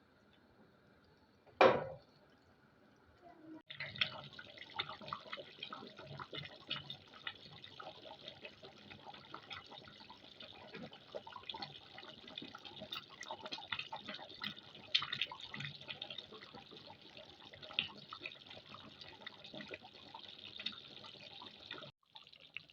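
A single loud knock about two seconds in, then chicken curry simmering in a pot: a dense, irregular patter of small bubbling pops and ticks as the sauce cooks down and thickens.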